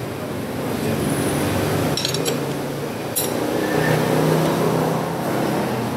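A motor vehicle's engine running steadily in the background, swelling slightly past the middle. A few sharp metal clinks come about two seconds in and again just after three, from the ratchet and chain rivet tool on the motorcycle chain.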